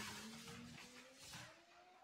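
Faint, repeated swishes of a paint roller rolling across a painted wall, with a thin tone slowly rising in pitch behind them.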